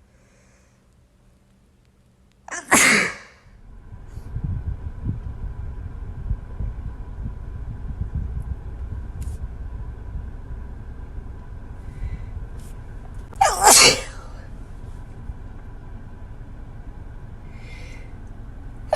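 A person sneezing twice, about eleven seconds apart: once about three seconds in and again past the middle. From just after the first sneeze, a steady low rumble runs underneath.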